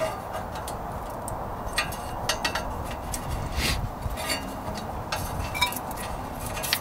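Scattered light metallic clinks and knocks, irregularly spaced, over a steady low background noise: metal car parts and tools being handled.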